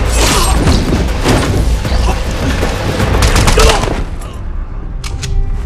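Film gunfire sound effects: rapid automatic-weapon fire with a heavy low rumble for about four seconds. It then drops away to a few last shots as a held music tone comes in.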